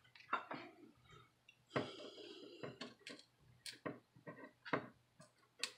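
A series of faint, sharp plastic clicks and snaps from a plastic pry tool being worked between a phone's plastic frame and its LCD screen, with a scraping rasp lasting about a second near the two-second mark.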